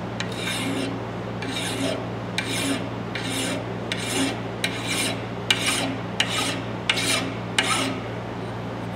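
Flat hand file rasping back and forth across the steel claw tip of a hammer, about ten even strokes, dressing down the edge of the claw. A steady low hum runs underneath.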